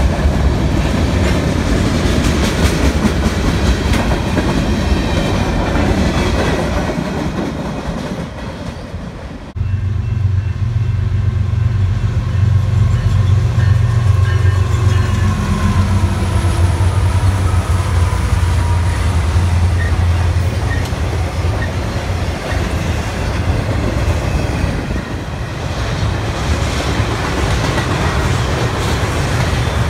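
Trains passing on the main line, with wheels clicking over the rail joints. About ten seconds in, the sound cuts abruptly to another passage dominated by a deep, steady diesel locomotive engine rumble.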